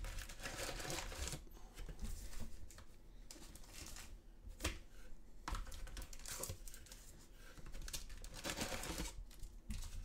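Cardboard trading-card box being handled and emptied by hand: rustling and scraping of card, with a few sharp clicks.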